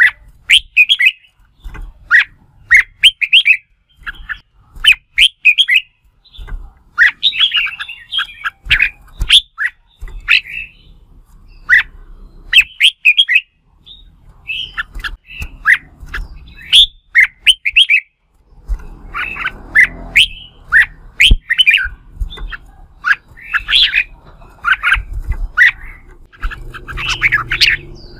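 Red-whiskered bulbul giving its loud competitive 'fighting' song: short, bright, chattering phrases repeated in quick succession, with a few low thuds in the second half.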